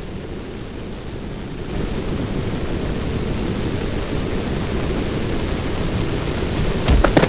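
Sound-effect rushing roar of the Mars Science Laboratory spacecraft descending through the Martian atmosphere. It grows louder about two seconds in, and a short sharp crackle comes near the end.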